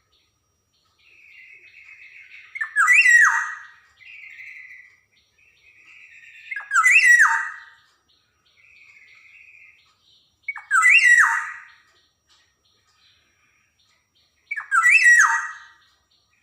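Black-naped oriole (kepodang) calling: four loud calls about four seconds apart, each a quick downward-swooping note, with softer buzzy notes in between.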